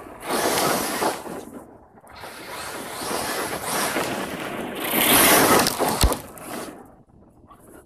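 Electric RC truggy on 6S running flat out over loose dry dirt, its tyres churning and spraying soil and grit in noisy surges as it passes, loudest about five seconds in. A sharp knock comes about six seconds in, and the sound dies away near the end.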